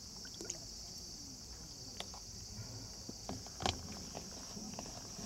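Hands working water into dry herabuna dango paste bait in a plastic bowl: soft rustling and crunching with a few small knocks, the loudest about two-thirds of the way through. Under it runs a steady high drone of insects.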